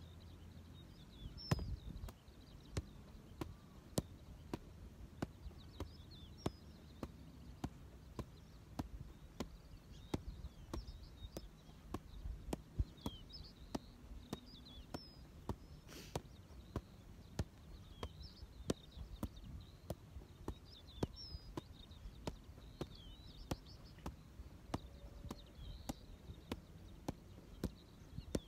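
Soccer ball being juggled (keepie-uppies): a steady run of light thuds as foot and leg touch the ball, about two touches a second.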